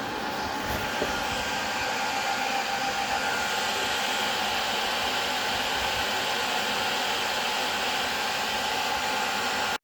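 NetApp FAS2040 storage server's cooling fans running steadily during its power-on test, a constant rushing hum with a steady whine in it. There is a faint click about a second in, and the sound cuts off abruptly near the end.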